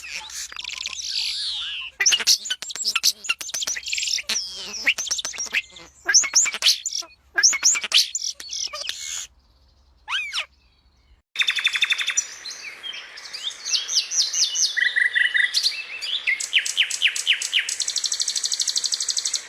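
Songbirds chirping and calling in quick, overlapping high notes. After a short pause about ten seconds in, fast trills and runs of repeated chirps.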